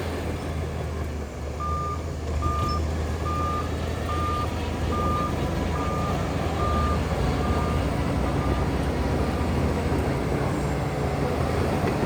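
A heavy earthmoving machine's reversing alarm beeping about nine times at one pitch, roughly one beep a second, fading out after about eight seconds. Under it, heavy machine engines run steadily.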